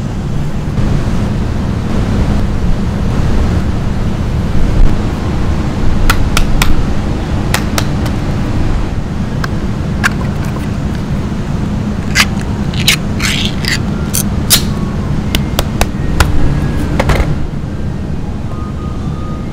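Steady low rumble throughout, with sharp knife clicks on a cutting board and, in the second half, a crackly run of metal clicks and tearing as a tin can's pull-tab lid is peeled open.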